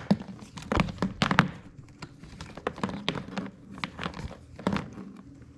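Irregular clicks, taps and knocks of an Oreck XL upright vacuum's power cord being unclipped and handled, with some rustling between.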